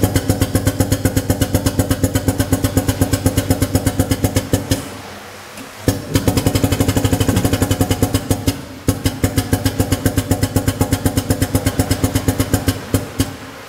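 Pneumatic (air-driven) hydraulic power unit of a drum tipper running as it rotates a clamped drum, a rapid, even pulsing of about eight beats a second. It drops away for about a second around five seconds in, then resumes.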